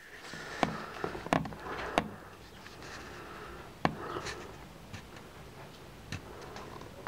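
A handful of sharp, irregular clicks and knocks over a low rustling, busiest in the first couple of seconds and thinning out after about four seconds.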